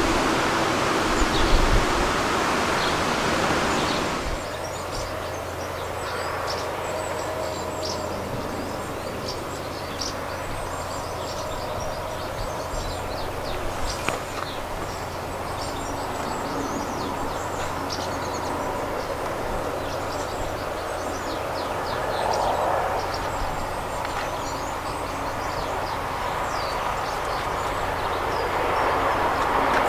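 Birds chirping over a steady low hum, after a broad rush of noise that stops at a cut about 4 s in. In the last few seconds the sound of steam locomotive 35018, a Bulleid Merchant Navy class Pacific approaching down the line, grows louder.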